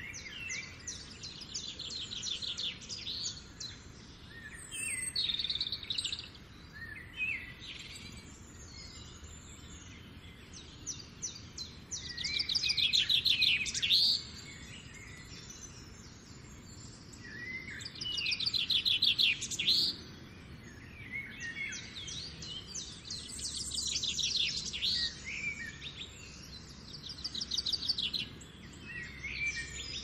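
Small songbirds singing: rapid high trills of a second or two each, repeating every few seconds, with the loudest phrases about halfway through, over a faint steady hiss.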